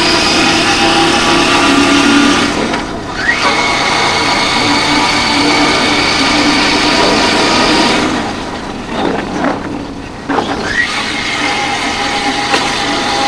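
Royal Enfield Continental GT 650's parallel-twin engine running at road speed, with wind rushing over a helmet-mounted camera's built-in mic. Twice the engine note drops for a moment and then climbs again.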